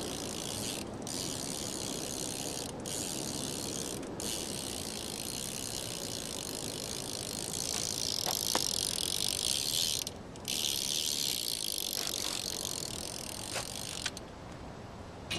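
Salt Plus rear cassette hub on a BMX wheel freewheeling: the pawls click so fast they merge into a continuous high-pitched buzz. It breaks off briefly a few times, about one, three, four and ten seconds in, and stops about fourteen seconds in.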